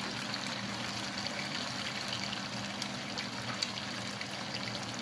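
Hot oil sizzling steadily in a frying pan, with faint scattered crackles.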